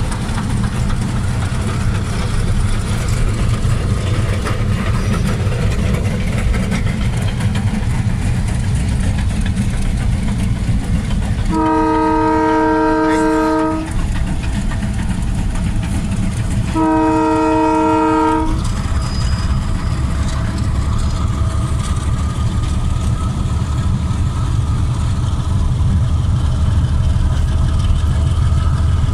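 Two long blasts of a diesel locomotive's horn, each about two seconds, a few seconds apart midway through, over a steady low engine rumble.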